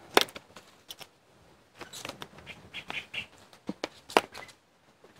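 Sporadic clicks and light knocks of a plastic molasses bottle being handled over a plastic bucket, with a sharp click right at the start.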